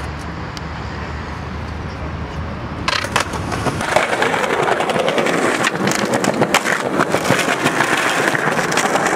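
Skateboard wheels rolling on concrete with many sharp clicks and knocks, starting abruptly about three seconds in; before that a low steady rumble.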